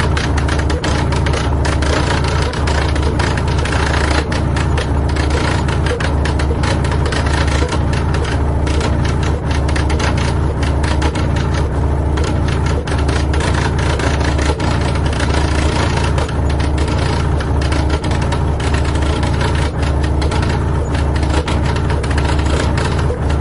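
Romeo RP-25 braille embosser embossing: a fast, continuous chatter of its solenoid-driven pins striking the paper over a steady low hum.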